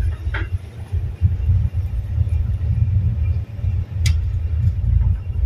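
Low, uneven rumble of a tugboat under way while it manoeuvres a barge, with one sharp click about four seconds in.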